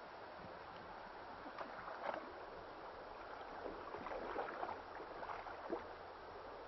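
Soft water splashes and lapping around a canoe on a slow creek: a few faint dips a second or two apart over a steady wash of noise.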